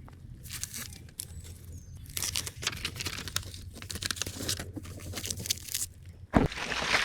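Crinkling and tearing of a foam sill sealer with a butyl adhesive backing as it is handled, over a steady low hum, with a louder crackling burst about six seconds in.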